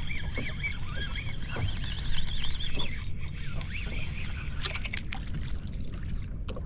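Wind and water noise around a small open boat on the sea, with a run of high, warbling chirps over the first few seconds and a few sharp clicks near the end.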